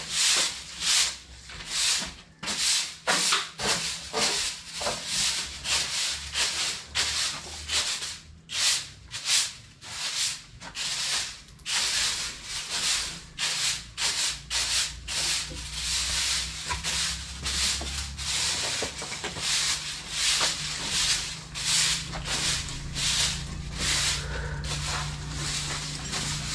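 Long-handled broom sweeping a hard floor in quick repeated scratchy strokes, about two a second, running together into steadier scraping in the second half.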